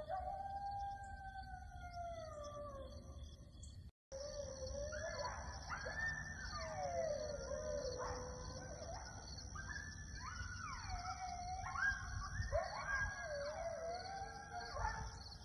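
Coyotes howling: first one long howl that falls in pitch, then, after a brief gap, a chorus of several coyotes howling and yipping over one another, their voices sliding up and down.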